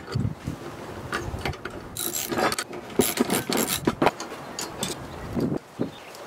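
Steel car window-regulator rails and brackets and a ratchet wrench handled on a plywood board: a run of metal clicks, knocks and scrapes against metal and wood, busiest in the middle.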